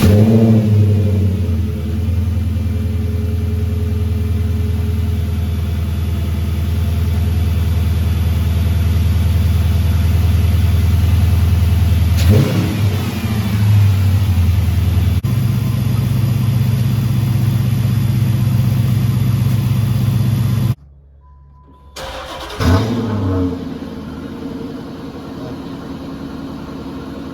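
Dodge Charger's 5.7 L Hemi V8 just fired up and running at a loud, steady idle, with one quick throttle blip about twelve seconds in, on its first start after two misplaced pushrods that held valves open were re-seated. It cuts off about twenty seconds in, then the engine is heard again, quieter, idling with a short rev.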